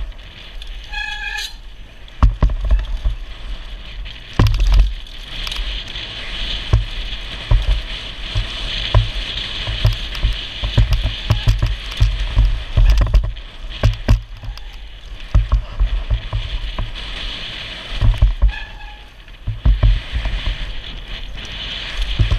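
Mountain bike descending a bermed dirt trail, heard from a helmet-mounted action camera: wind buffeting the microphone in heavy low gusts over the hiss of knobby tyres on packed dirt, with the bike rattling and knocking over bumps and landings. A brief high squeal comes about a second in and again near the end.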